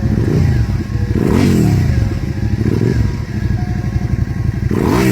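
V-twin motorcycle engine idling with a lumpy, pulsing beat. It is blipped on the throttle several times, each rev rising and falling back quickly.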